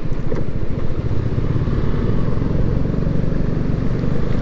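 Motorcycle engine running steadily as the bike rides along.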